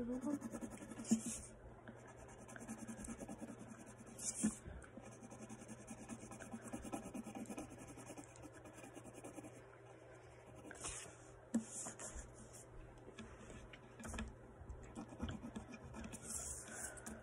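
Pen drawing on paper: scratchy strokes in runs lasting a second or more, with short pauses between them.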